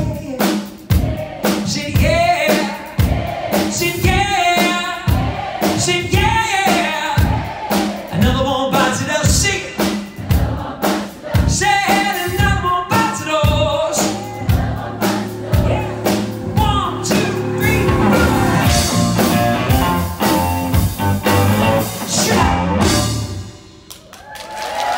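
Live rock band with male lead vocals, drum kit, electric guitars and keyboards, playing the closing section of a song. From about 14 seconds in, the band holds a long final chord that cuts off just before the end, and applause starts right at the end.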